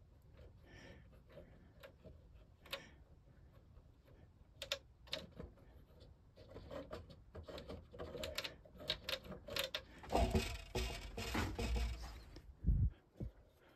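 Light clicks and taps of small wooden model-ship parts and a plastic glue bottle being handled, growing busier partway through. About ten seconds in come two seconds of close rustling with a low rumble, as a hand and arm move near the microphone.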